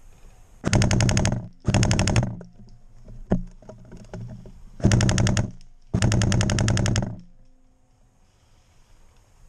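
Airsoft gun firing on full auto in four short bursts of rapid, evenly spaced shots: two close together near the start and two more about five and six seconds in, with a single click between them.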